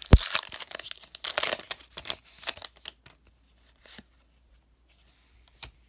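A foil-lined Pokémon booster pack wrapper is torn open and crinkled by hand, with a sharp thump at the very start. The crackling runs for about three seconds and then gives way to a few light clicks of cards being handled.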